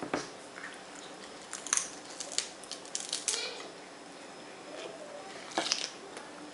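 Biting and chewing a lettuce-wrapped taco: crisp crunches of the lettuce leaves and mouth sounds. They come in clusters from about a second and a half to three and a half seconds in, and again near the end.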